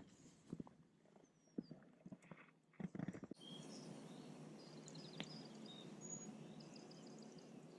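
Faint scattered clicks and knocks for the first three seconds. Then a steady outdoor background hiss sets in suddenly, with small birds chirping over it.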